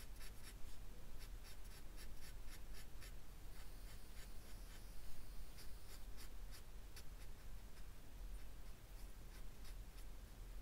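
Felt-tip pen scratching across paper in short back-and-forth colouring strokes, a few strokes a second.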